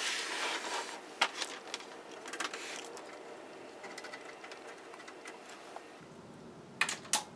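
Handling noise from the opened Denon AVR-2802 receiver: its metal chassis being shifted on the bench and RCA plugs pushed into its back-panel jacks, with soft scrapes and small clicks. A few sharp clicks come near the end.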